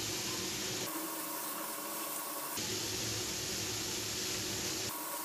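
Minced chicken sizzling steadily in a frying pan as the liquid it released cooks off.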